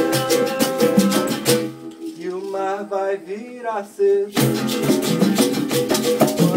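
Acoustic Brazilian jam: strummed acoustic guitar, conga drums and a shaker rattle, with singing. About a second and a half in, the drums and rattle stop and only the voice and guitar carry on for a few seconds, then the full group comes back in together.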